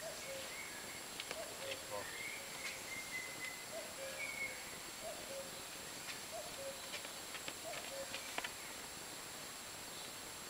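A bird in the woods repeating a short two-note call, the second note lower and longer, about once a second. A few faint sharp clicks and taps are scattered through it.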